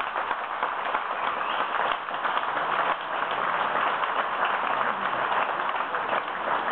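Crowd applauding, a dense, steady patter of many hands clapping.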